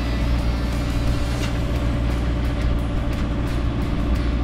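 Sailboat's engine running steadily as the boat motors through choppy water, with wind and water noise over it.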